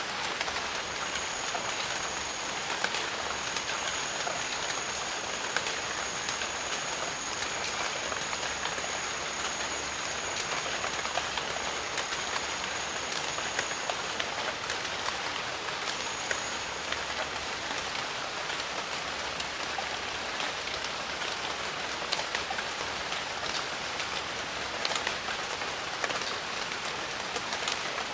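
Steady jungle rain: an even hiss with many separate drops ticking through it. A thin, high, steady tone holds through roughly the first half and comes back briefly a couple of seconds later.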